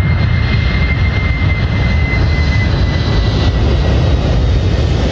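Stratolaunch Roc's six turbofan jet engines running loud and steady as the giant twin-fuselage aircraft rolls along the runway, with a thin high whine that drifts slightly lower and fades about three seconds in.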